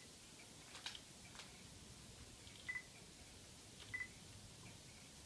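Faint short electronic beeps from a DSLR camera, three in all: the autofocus-confirmation beep as the shutter button is half-pressed and focus locks. Two soft clicks come about a second in.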